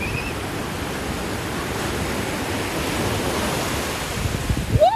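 Ocean surf washing in and breaking at the shoreline, a steady rush of waves. A voice starts to rise just at the end.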